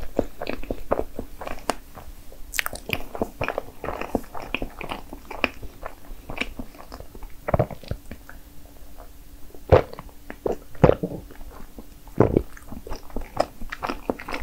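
Close-miked chewing and biting of soft layered strawberry crepe cake: an irregular run of short, wet mouth clicks and smacks, with a few louder sharp clicks partway through.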